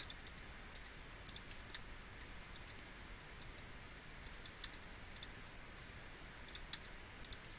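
Faint, scattered computer mouse and keyboard clicks at an irregular pace, over a low steady hum of room noise.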